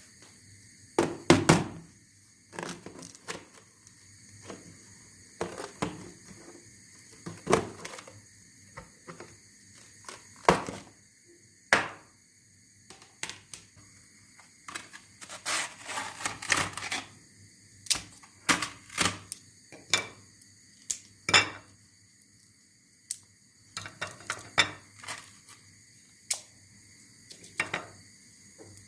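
Dishes and cutlery clinking and knocking in irregular bursts during kitchen work, with a faint steady hum underneath.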